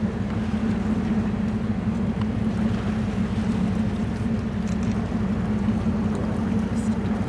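Steady low hum of a cruise ship's machinery, with a few faint clicks.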